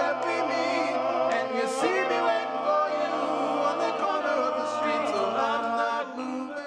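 Male a cappella group singing in close harmony without instruments, several voices holding chords over a low bass line; the singing trails off near the end.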